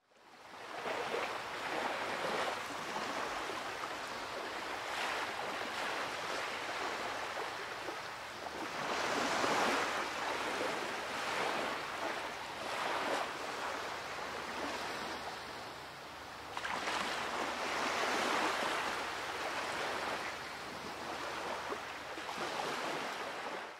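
Waves washing in: a steady rushing noise that swells and ebbs every few seconds.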